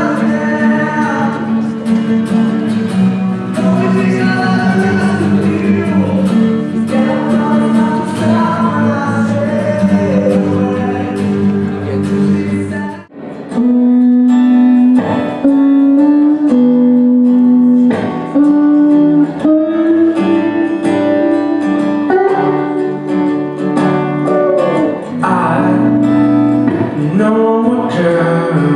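Singing with guitar accompaniment. About thirteen seconds in it cuts off abruptly and another song with guitar and voice starts.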